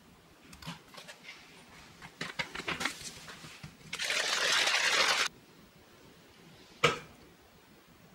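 Whey protein powder and water shaken hard in a clear plastic shaker bottle, a dense sloshing rattle lasting just over a second, after a few light taps and clicks. One sharp knock follows about two seconds later.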